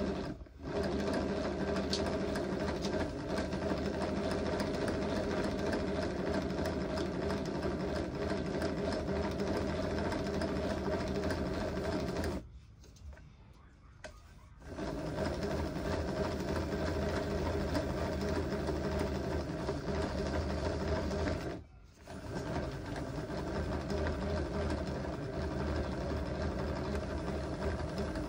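A small electric machine motor running steadily in long stretches. It stops briefly just after the start, for about two seconds near the middle, and briefly again about three quarters of the way through.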